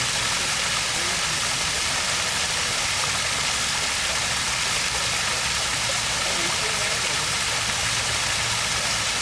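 A water stream flowing steadily: a constant bright hiss of rushing water over a low rumble.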